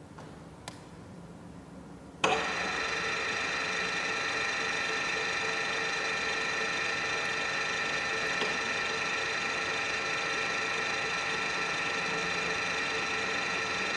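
HU 40 G-4 pillar drill's motor and gear head switched on about two seconds in, after a single click, then running steadily with a whine of several steady tones.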